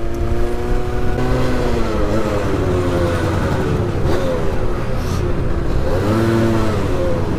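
Small two-stroke scooter engine running under way, its pitch slowly rising and falling as the speed changes, over a steady low rumble.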